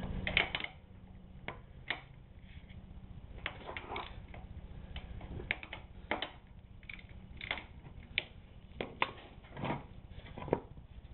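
Scattered sharp metallic clicks and knocks of a socket wrench working loose the drain plug on a Honda CRF230L motorcycle crankcase, at an irregular pace over a low steady hum.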